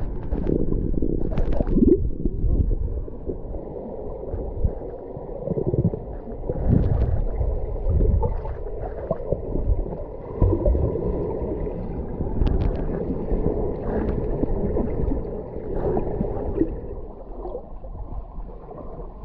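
Muffled underwater sound picked up by a camera held beneath the surface: a low, steady water noise with scattered small clicks and knocks.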